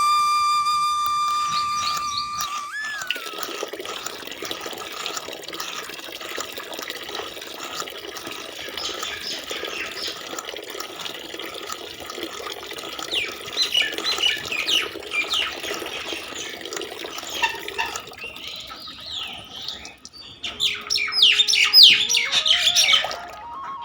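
Birds chirping and squawking over a steady rush of running water, after a held flute note fades in the first few seconds; the chirping grows loud and busy near the end.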